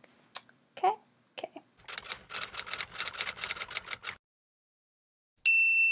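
Typewriter sound effect: rapid key clacks, about nine a second, for about two seconds, then a pause and a single bell ding near the end that rings on. Before it come a few scattered clicks and a brief vocal sound.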